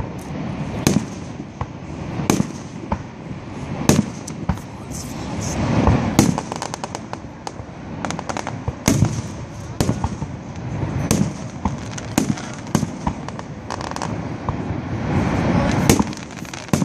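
Aerial fireworks exploding in steady succession: booming bursts about once or twice a second, some coming in quick clusters of sharp cracks.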